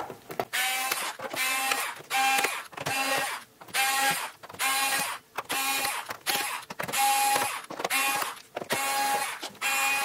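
Electric screwdriver running in about ten short whirring bursts, each under a second, as it backs out the laptop's bottom-case screws one after another.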